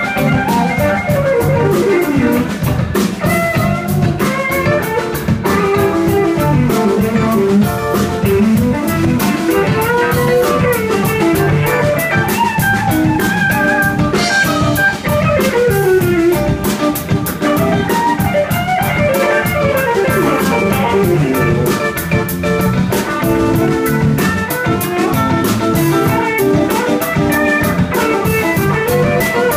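Live blues band playing with no singing: electric guitar lead lines that bend and slide in pitch, over electric bass and a drum kit keeping a steady beat.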